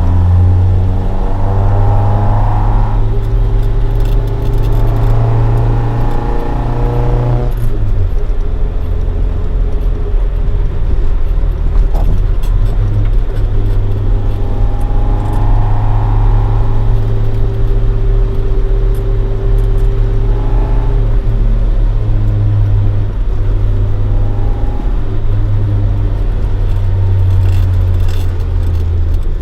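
Toyota AE86 Sprinter Trueno running at cruise. Its engine is a swapped-in AE111 20-valve (5-valve-per-cylinder) 4A-GE on individual throttle bodies, breathing through a Fujitsubo Legalis R dual-tail exhaust. The engine note holds steady, breaks off and picks up again about seven seconds in, then runs on.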